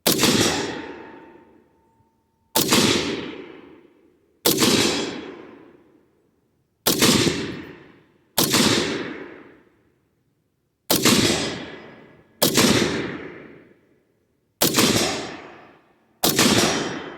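Nine single shots from a Bushmaster XM-15 AR-15 rifle in .223/5.56, fired semi-automatically about every one and a half to two and a half seconds. Each shot echoes and dies away over a second or two.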